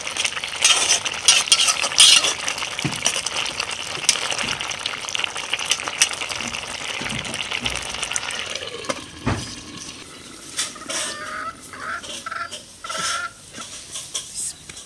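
Malabar spinach and fish-head curry boiling hard in an aluminium pot, bubbling and hissing, while a metal ladle stirs and clinks against the pot for the first few seconds. From about nine seconds in the boiling is quieter, and a few short animal calls come near the end.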